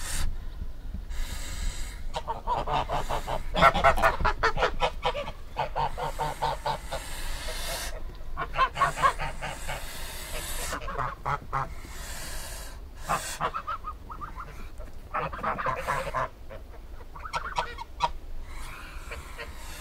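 Geese honking in repeated bouts of rapid calls, with a pause of a second or so between bouts.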